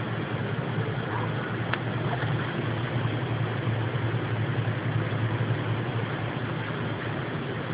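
A steady deep drone of unknown origin, like an engine or machine running, under an even hiss; its sound is between that of a plane and a helicopter.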